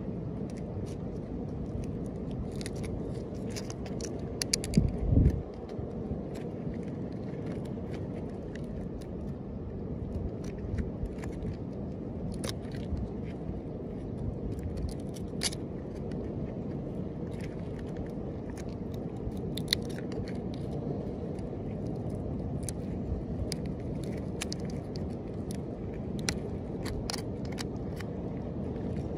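Small tool scraping and picking at a turtle's shell, giving scattered light clicks and scrapes over a steady low rumble, with a louder low thump about five seconds in.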